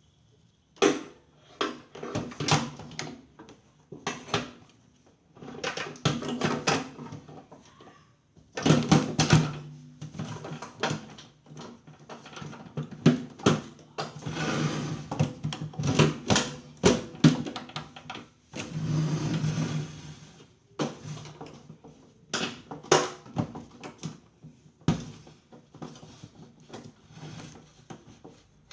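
Irregular knocks, clicks and rattles of parts and tools being handled during a microwave repair, in clusters with short pauses, and a low hum at times.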